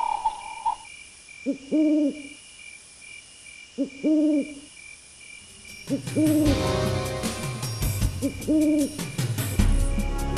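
An owl hooting, a pair of short hoots repeating about every two seconds. Background music comes in underneath about six seconds in.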